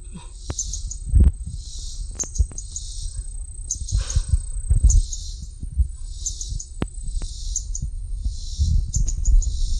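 A bird chirping over and over, one short high call about every three-quarters of a second, above a faint steady high trill. Low rumbling thumps sound on the microphone now and then.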